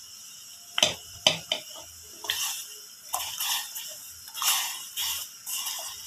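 Raw potato sticks dropped by hand into a pot of water, a few at a time, splashing repeatedly. A few sharp knocks against the pot about a second in.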